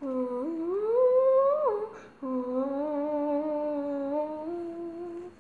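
A girl humming a wordless tune in two long notes. The first slides upward and breaks off, and after a short pause the second is held lower and fairly steady, stepping up slightly near the end.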